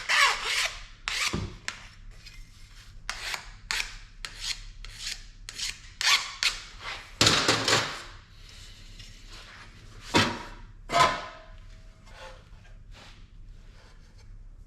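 Hand file rasping along the edges of an aluminum sheet faceplate, deburring it in a string of irregular back-and-forth strokes. The strokes grow weaker and sparser near the end.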